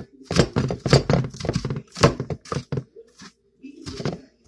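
Knife chopping vegetables on a cutting board: a quick run of strikes for about three seconds, a pause, then another cut near the end.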